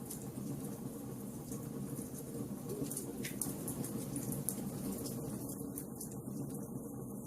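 Wood fire crackling in a fireplace: a steady low rumble of burning with scattered small sharp pops and snaps.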